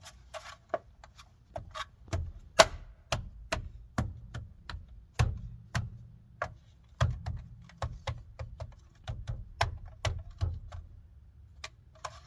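Plastic wheel skin being bumped onto an alloy wheel by hand: a run of irregular knocks and clicks, about two a second, many with a dull thump, one much louder knock a few seconds in, as the skin snaps into place.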